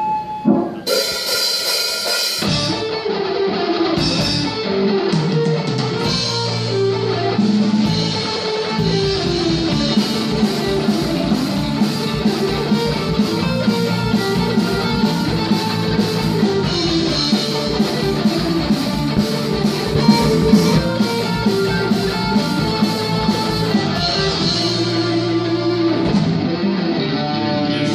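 Live symphonic rock band playing an instrumental passage: nylon-string acoustic guitar, electric guitar and bass over a drum kit. A loud crash comes about a second in, and from about ten seconds in a steady, even drum beat drives the music.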